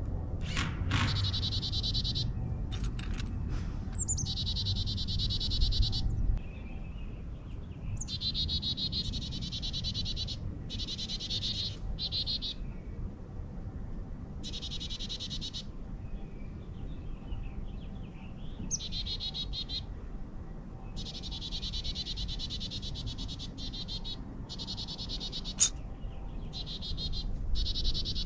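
High-pitched trilling calls come in runs of two to four seconds with short gaps between them, over a low steady rumble. A single short, sharp call stands out a couple of seconds before the end.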